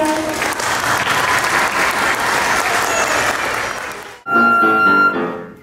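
Audience applauding for about four seconds and fading, then instrumental music with clear held notes starting suddenly near the end.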